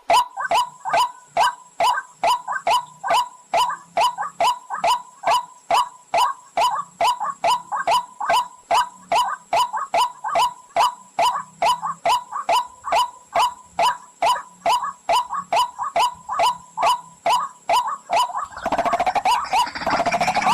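Recorded pullakodi bird call played as a hunting lure: a short down-sliding note repeated evenly, about two and a half times a second. Near the end it gives way to a denser, rougher calling.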